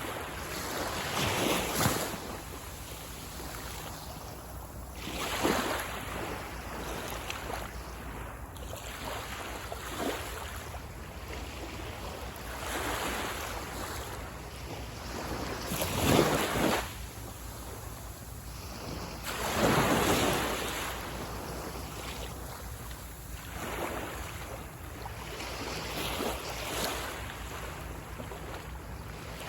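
Sea waves breaking and washing up the beach, one surge every three to four seconds, the loudest about halfway through and a few seconds after.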